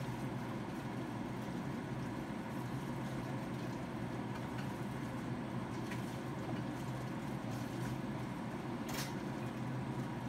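Steady low hum of a kitchen range hood fan, with a few faint clinks of dishes being handled at the sink, the sharpest about nine seconds in.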